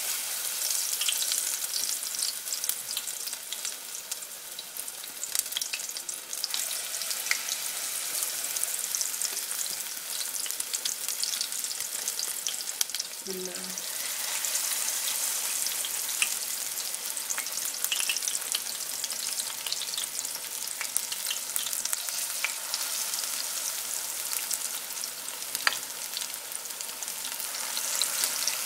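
Spinach and potato pakora batter deep-frying in hot oil in a pot, sizzling steadily with a dense spray of fine crackles.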